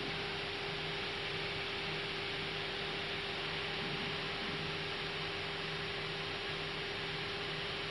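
Steady Airbus A320 cockpit background noise with the aircraft stopped, waiting for departure: an even hiss from ventilation and idling engines, with a constant electrical hum.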